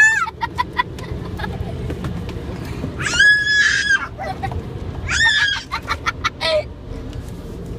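Children's high-pitched shrieks and squeals: a long held one about three seconds in and shorter ones around five and six and a half seconds, over the low rumble of the minivan heard from inside the cabin.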